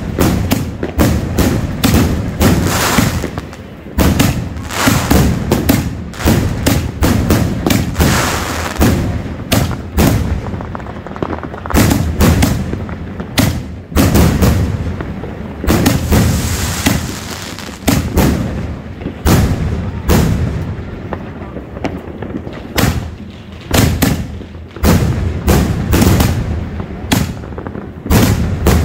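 Rapid barrage of large aerial firework shells and salutes fired from a rack: loud launch thumps and shell bursts following one another several times a second without a break.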